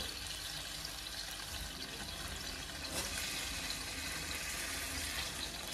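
Steak simmering in barbecue sauce and wine in a stainless steel sauté pan over a gas burner turned down to low: a steady, quiet sizzle, with a light tap about three seconds in.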